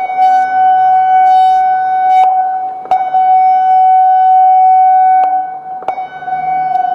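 Federal Signal Modulator 6024 electronic outdoor warning siren sounding its warning tone during a test: one steady, loud, high tone that swells and fades about every three seconds.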